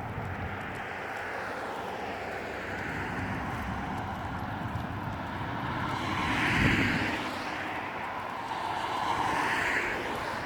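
Road traffic passing outdoors: a vehicle goes by, loudest about six and a half seconds in, and another swells near the end over a steady background hum.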